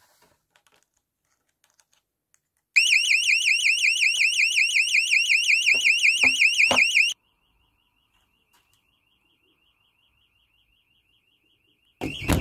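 Fire alarm sounder, announced as an Evacuator, sounding a fast sweeping warble tone of several sweeps a second. About three seconds in it starts loud and holds for about four seconds, with a few knocks under it, then abruptly drops to a faint but continuing tone. A loud handling bump comes near the end.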